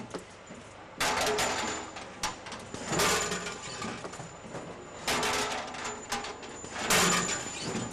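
Weighed batches of steel bolts from a double linear weigher dropping down a stainless-steel chute into a cardboard box: a metallic clatter about every two seconds, four times.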